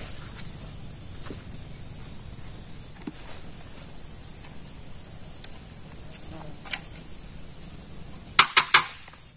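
Steady high chirring of forest insects such as crickets, with a few faint clicks, then three sharp cracks in quick succession near the end.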